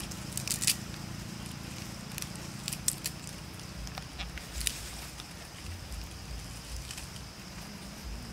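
Dry leaves crackling in scattered sharp clicks as young monkeys handle them and shift about in the leaf litter.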